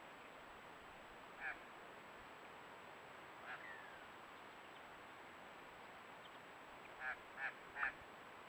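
Short bird calls over a faint steady hiss: a single call about a second and a half in, another with a brief falling slur about three and a half seconds in, then three calls in quick succession near the end.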